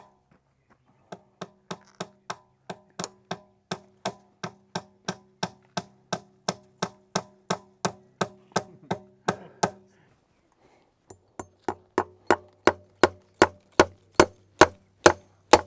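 A hammer striking in rapid, even blows, about three a second, with a ringing tone under them, driving fence staples to fix a stretched bottom strand of barbed wire to a wooden post. The hammering comes in two runs with a short pause between, the second run louder.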